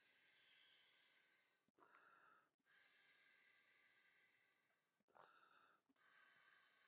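An inflatable packraft seat being blown up by mouth through its inflation hose: long exhaled breaths pushed into the hose, each lasting about two seconds, with a quick intake of breath between them twice. Faint.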